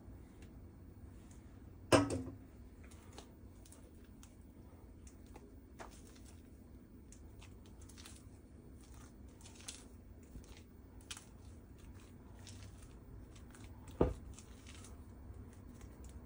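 Silicone spatula folding whipped topping into a thick peanut butter mixture in a bowl: faint scraping and short soft clicks, with two sharp knocks, one about two seconds in and another a couple of seconds before the end.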